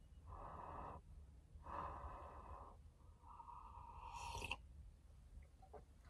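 Faint slurping sips of hot drip coffee, three in a row, each lasting about a second.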